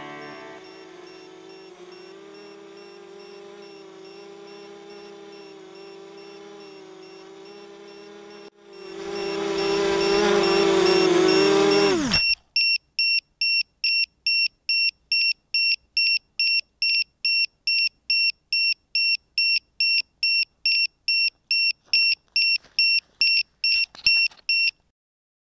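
A held musical chord gives way to a 250-size racing quadcopter's motors whirring louder for a few seconds, then winding down with a falling pitch. After that the quadcopter beeps steadily, about two and a half short high beeps a second, for about twelve seconds until the beeping cuts off.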